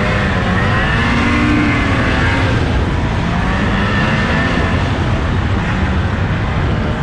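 Two-stroke snowmobile engine running under way, its pitch rising and falling as the throttle is worked, over the rush of track and wind noise.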